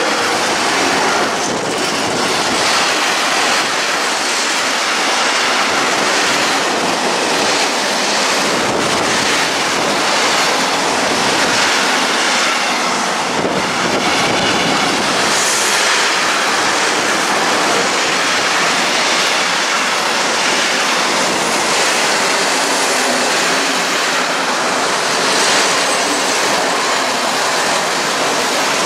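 Freight train of tank wagons rolling past close by: a loud, steady rumble and clatter of wagon wheels on the rails.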